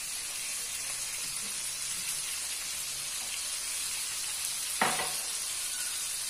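Hot pan juices sizzling steadily in a terracotta dish around a just-roasted beef joint, with one sharp knock near the end.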